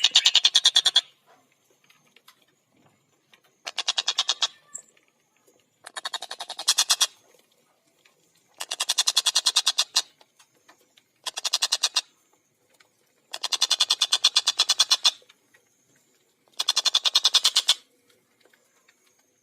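Tengkek buto kingfisher giving its rapid chattering call, a fast run of harsh 'kek' notes. It comes in repeated bursts of one to two seconds each, about seven of them, with short pauses between.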